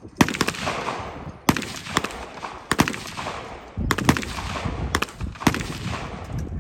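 Gunshots from a shooting competition stage: about eight sharp shots at irregular intervals of roughly a second, some in quick pairs, each trailing off in echo.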